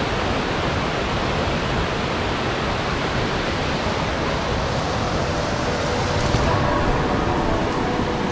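A small waterfall giving a steady, loud rush of splashing water.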